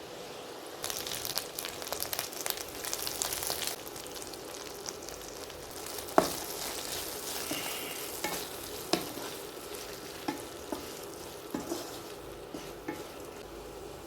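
Potatoes frying in hot oil. A burst of loud crackling sizzle starts about a second in and eases after a few seconds into a steadier sizzle, broken by a number of sharp knocks as they are stirred in the pan.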